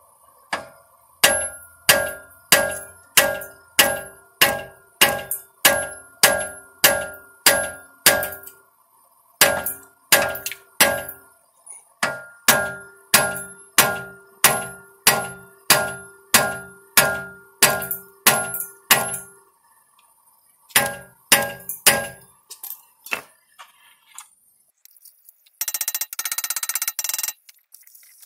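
Hammer blows on a hydraulic hub puller clamped to a heated, rusted rear hub, each a ringing metallic clang, about two a second in runs broken by a few short pauses. The blows shock the rust-seized CV axle to break it loose from the hub splines. Near the end the blows stop and a steady hiss comes in.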